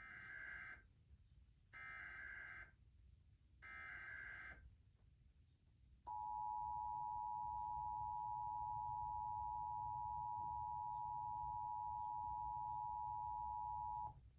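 Emergency Alert System tones: three short bursts of the SAME header's screechy digital data, each about a second long and a second apart, then the EAS two-tone attention signal, a steady harsh pair of tones held about eight seconds before cutting off suddenly.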